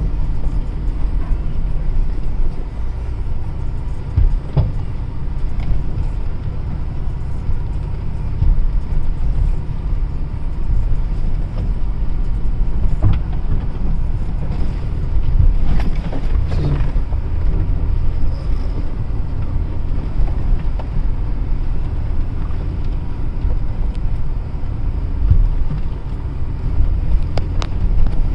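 Motor vehicle driving on a rough unpaved road: a steady low engine and road rumble, with occasional knocks and rattles from bumps.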